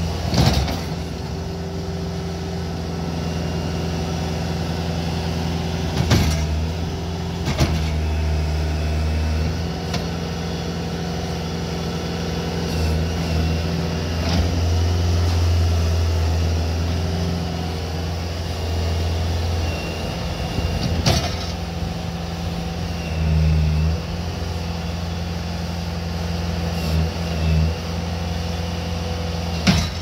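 Bobcat S220 skid-steer loader's diesel engine running steadily as the machine is driven and its loader arms are worked, the engine getting louder for a few stretches. A handful of sharp knocks come through along the way.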